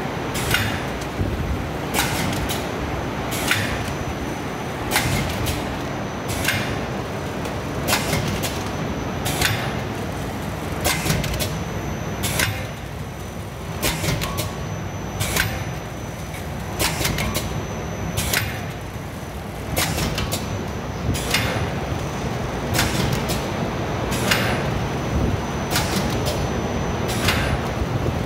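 Vertical form-fill-seal pouch packing machine for shisha tobacco running its packing cycle: a steady mechanical hum with a sharp stroke about every one and a half seconds, each stroke one cycle of the machine.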